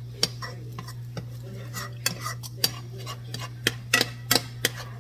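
A utensil scraping and clinking against a cooking pot in irregular strokes, with a quick run of louder knocks about three and a half to four and a half seconds in, over a steady low hum.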